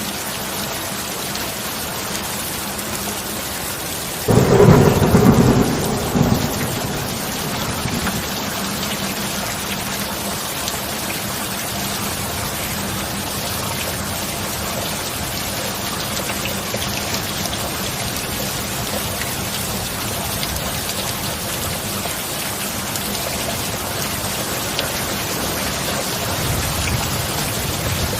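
Steady heavy rain, with a sudden loud thunderclap about four seconds in that rumbles away over the next few seconds, and a fainter low rumble of thunder near the end.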